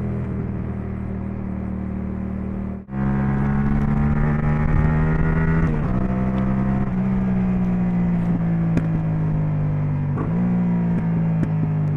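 Yamaha MT-07 parallel-twin engine running through an Akrapovič titanium exhaust. Its note sinks slowly and jumps up in pitch twice, with a few sharp pops scattered through it. The sound cuts out for a moment about three seconds in.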